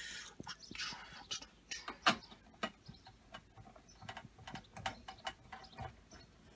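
Small, irregular metallic clicks and scrapes of screws being handled and fitted into the sheet-metal chassis of a Gateway all-in-one desktop, with a sharper click about two seconds in.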